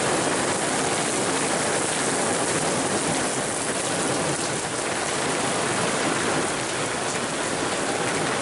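Steady rain falling from a passing hurricane rain band, hitting the ground and nearby surfaces.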